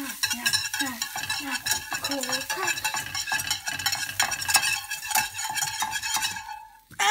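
Cheese frying in a nonstick pan: a steady crackle of popping fat, with a utensil scraping and pushing the pieces across the pan. The crackle falls away near the end.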